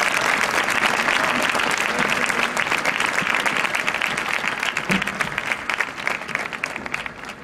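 Crowd applauding: dense clapping that thins out and fades away toward the end.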